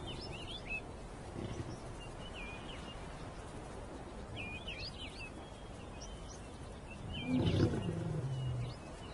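Small birds chirping in short phrases over steady outdoor ambience; about seven seconds in, a lion gives one low growl lasting about a second and a half, its pitch falling slightly at the end.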